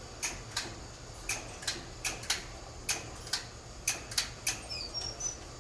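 A run of short, sharp clicks, about a dozen of them at uneven spacing, roughly two a second.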